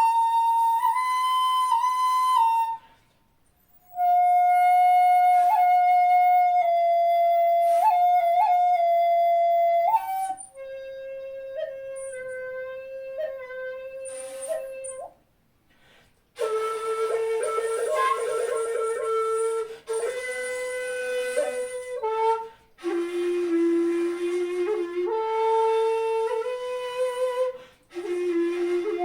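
Jinashi shakuhachi, a 2.0-shaku bamboo flute pitched in C, played in long held notes with small pitch bends and quick grace-note flicks, stepping down from high notes to the low register. Two short breaks between phrases, and from about the middle a breathier, airier tone with a fluttering edge on the held notes.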